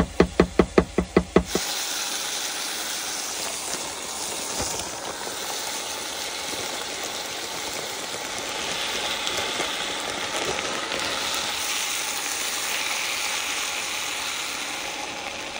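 Food sizzling in an electric self-heating pot, a steady hiss, with a quick run of about ten rapid knocks in the first second and a half.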